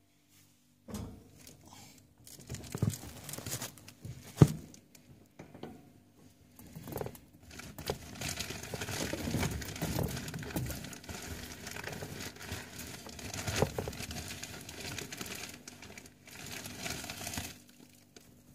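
Hay rustling and crinkling as guinea pigs and a hand move through it in the cage. A few handling knocks come in the first seconds, the sharpest about four seconds in. A denser stretch of rustling later cuts off abruptly shortly before the end.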